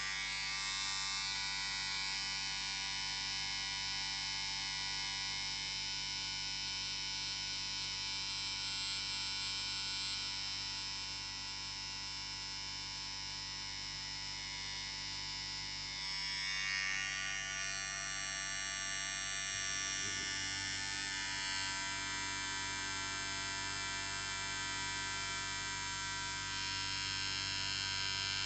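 Electric beard trimmer running with a steady buzz. Its tone shifts a little past halfway through.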